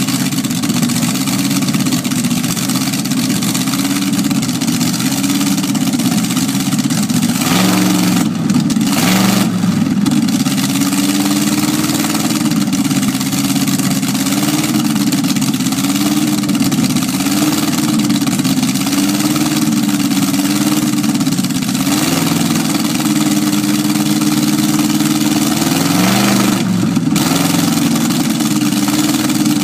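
An old drag car's engine idling loudly with a lumpy, wavering idle whose pitch rises and falls every second or two. It is briefly revved about eight seconds in, and again a few times later, near the end.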